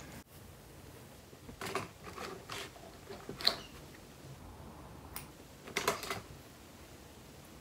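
Faint handling sounds of needle and thread and an open sewing kit: a handful of short, scattered clicks and rustles.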